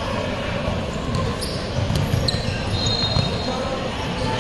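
Futsal ball being kicked and bouncing on a hard indoor court, with several sharp knocks, and a sneaker squeaking briefly on the floor a little after three seconds in.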